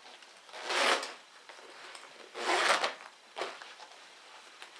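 Side leg zipper of Crye Precision Gen 1 combat pants being run along its track: two short zip strokes of about half a second each, one about a second in and one about two and a half seconds in.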